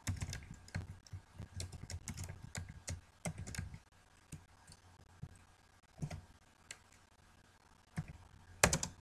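Typing on a computer keyboard: a quick run of keystrokes over the first four seconds or so, a couple of single taps after a pause, then another short flurry near the end.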